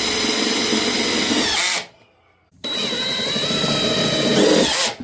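Power drill driving half-inch self-tapping screws into a broken lawnmower part, in two runs of about two seconds each with a short pause between. The motor pitch sags just before each run stops, as each screw seats.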